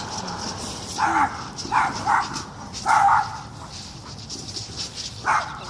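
A dog barking: a bark about a second in, then a quick pair, another just after three seconds, and one more about five seconds in.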